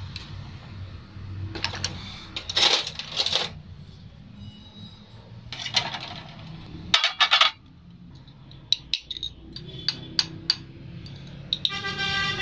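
Small metal parts and tools clinking and knocking on a workbench in irregular clusters of sharp clicks, over a steady low hum, with a brief ringing tone near the end.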